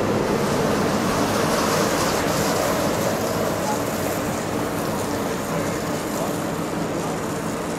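Electric monorail train running past at close range and moving off, a steady rushing rumble that slowly fades.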